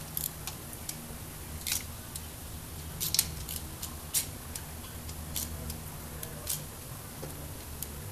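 Quarter-inch ratchet on a 10 mm wobble socket clicking in short, irregular bursts as the intake manifold bolts are snugged down by hand. A low steady hum runs underneath.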